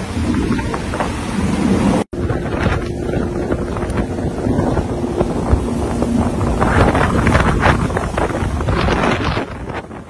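Hurricane-force wind buffeting the microphone in gusts over the rush of churning storm-surge water. The sound drops out for an instant about two seconds in.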